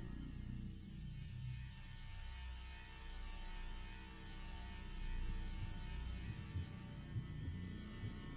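Low, steady droning hum of a spooky ambience soundscape, with faint thin tones held above it and a couple of soft knocks near the end.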